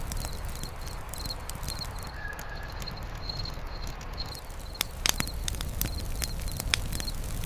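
Wood fire crackling with irregular sharp pops, the loudest cluster about five seconds in, over a low steady rumble. A high, short chirp repeats evenly in the background, like an insect.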